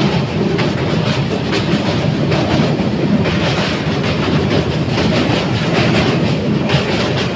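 Passenger train running across a steel truss bridge, heard from the coach's open doorway: a loud, steady rumble of wheels on rails with repeated clickety-clack clicks over the rail joints.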